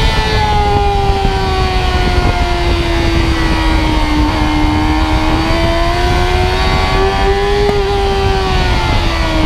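Sport motorcycle engine at high revs, its pitch sliding down as the bike slows into a corner, then climbing again on the throttle, and dropping suddenly near the end on an upshift. Heavy wind rush on the microphone underneath.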